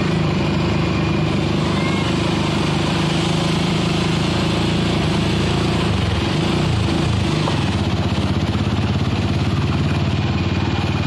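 Small vehicle engine running steadily at low speed, its pitch sliding down and back up about six seconds in, over a constant rush of seawater washing across the flooded road.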